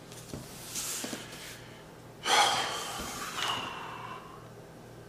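A man breathing out heavily through his nose or mouth. A soft breath comes about a second in, then a louder, drawn-out sigh-like exhale about two seconds in that lasts over a second, with a faint whistle in it.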